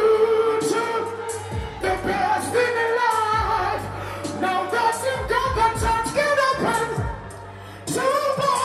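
Live reggae vocal performance: a male singer singing into a handheld microphone over a reggae beat with kick drum and bass, played loud through a sound system.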